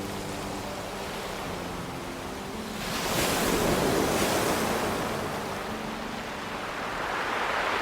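Ocean surf washing on a pebble beach. One wave swells about three seconds in and fades, and another builds near the end, over faint sustained music notes.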